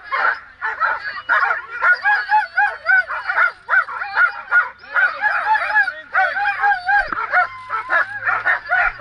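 Bikejoring dogs yelping and barking in quick, unbroken volleys at the start line, the high-pitched excited calls of dogs eager to be let go and pull. Several voices overlap at different pitches.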